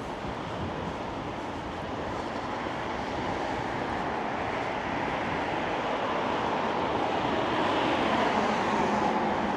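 A vehicle approaching and passing, a steady rushing noise that grows gradually louder and is loudest near the end.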